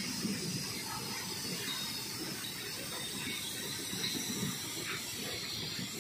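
Loaded BOXN open freight wagons rolling past: a steady rumble of wheels on rail.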